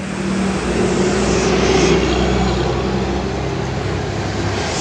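A motor vehicle passing on the road, its engine drone swelling over the first two seconds and then easing off slowly.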